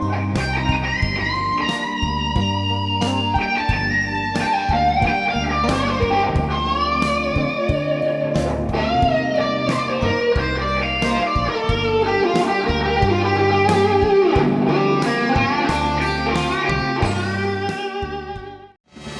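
Blues-rock electric lead guitar playing bent, vibrato-laden notes over bass and drums. The music drops out abruptly near the end.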